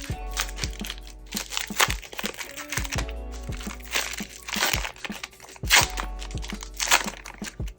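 Crinkling and tearing of a baseball-card fat pack's wrapper as it is opened, in several loud rustles, over background music with a steady beat.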